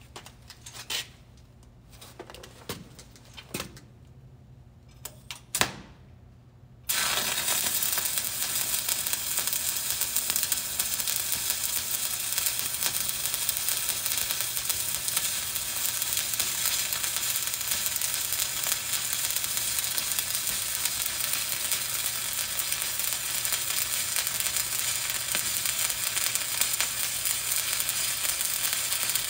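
Stick-welding (SMAW) arc from a 7018 rod running a vertical-up bead: a steady, even crackling sizzle that starts abruptly about seven seconds in, after a few light clicks and knocks.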